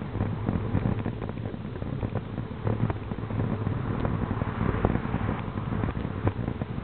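Steady wind rumble on the microphone of a camera carried on a moving bicycle, mixed with tyre and road noise and scattered light clicks and knocks.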